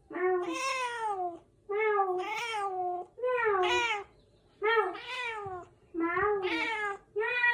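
A cat meowing over and over: about six drawn-out meows, each lasting roughly a second, with short pauses between them.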